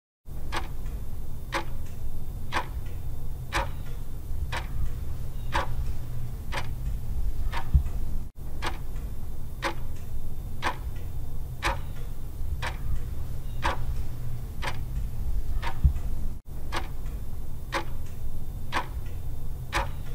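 Countdown-timer sound effect: a clock ticking steadily once a second over a constant low hum. It cuts out for an instant twice, where the sound loop restarts.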